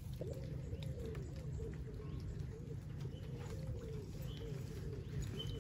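A pigeon cooing repeatedly, over a low steady hum.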